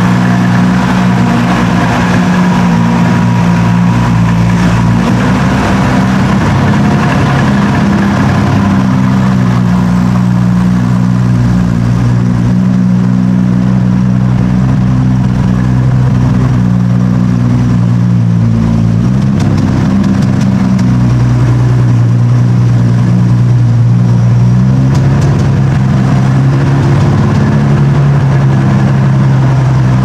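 Classic Aston Martin DB5's straight-six engine running at a low, steady idle as the car creeps along at walking pace, its note shifting briefly about two-thirds of the way through.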